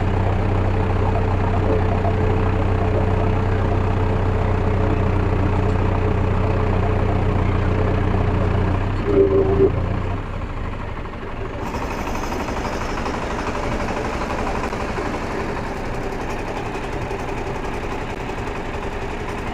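Four-wheel-drive tractor's diesel engine running steadily under load as it drives through deep paddy-field mud. About halfway through the sound changes to a quieter, rougher engine running, with more hiss.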